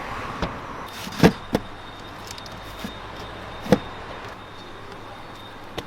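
A few sharp knocks over a steady background noise: two close together about a second in and another near the middle, with fainter taps between.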